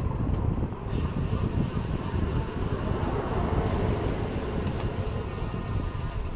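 Wind buffeting the microphone of a moving bicycle camera. From about a second in, a steady high-pitched hiss joins it and then cuts off sharply.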